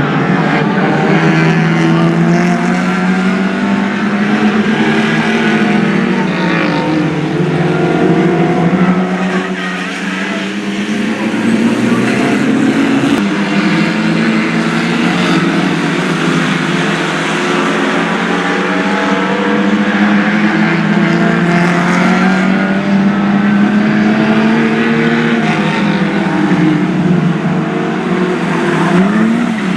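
A pack of Lightning Rods oval stock cars racing, several engines running together with their pitch rising and falling repeatedly as the cars accelerate and back off around the track.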